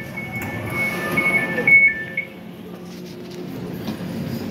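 Elizabeth line door warning beeps sounding as the doors open: a high beeping in two pitches that stops about two seconds in, followed by lower shuffling as the doors stand open.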